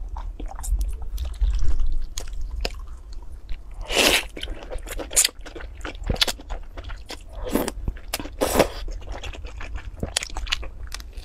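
Close-miked eating sounds: a sesame-crusted flatbread (shaobing) bitten and chewed with crisp crunching and wet mouth clicks, and wide cold noodles in sesame sauce (mianpi) slurped up, with two louder slurps about four and eight and a half seconds in.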